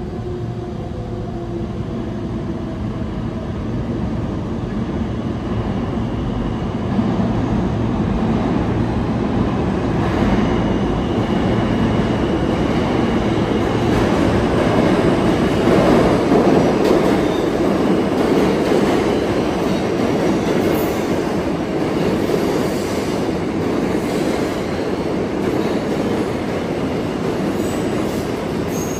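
New York City subway train moving through an underground station: a dense rumble of wheels on rail that swells to its loudest about halfway through, with a few thin high tones coming and going.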